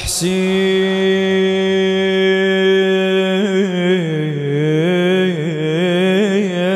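A male reciter's unaccompanied chanted Iraqi Shia Muharram lament (kaadiya): one long sung note held steady for about three seconds, then turning into a wavering, ornamented melisma that dips lower in pitch and comes back up.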